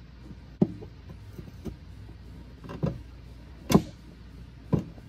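A new aluminum heater core knocking and bumping against the plastic heater box and firewall as it is pushed up into place: four sharp knocks at uneven intervals, the loudest about three-quarters through. The core is jamming because it is too wide to go in the box, the wrong part for a Bronco II.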